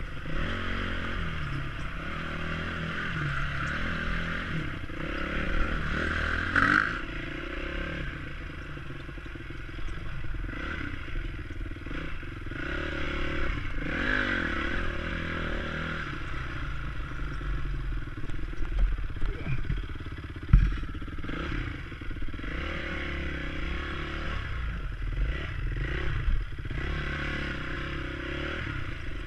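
Honda CRF250X dirt bike's single-cylinder four-stroke engine running at low revs, the throttle opened and closed in small blips while the bike crawls over rocks and ruts. Clattering knocks from the bike come throughout, with one sharp knock about two-thirds of the way through.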